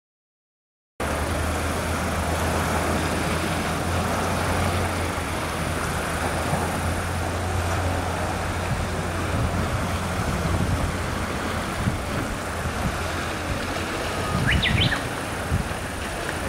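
Steady low drone of distant engines under an even outdoor hiss, starting about a second in, with a short bird chirp near the end.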